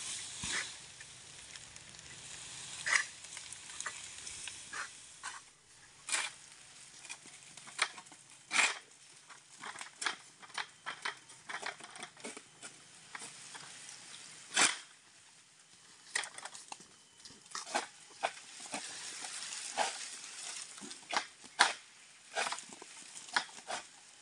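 Rustling palm fronds with many irregular sharp snaps and cracks, as a long-poled harvesting sickle hooks and cuts at an oil palm's fronds.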